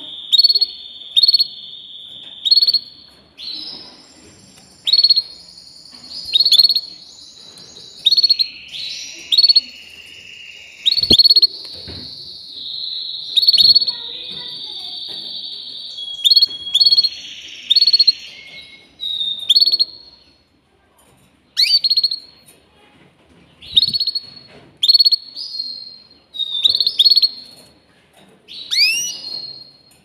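Domestic canary singing: sharp repeated chip notes mixed with long, sustained rolled trills, and a few notes sweeping down in pitch near the end.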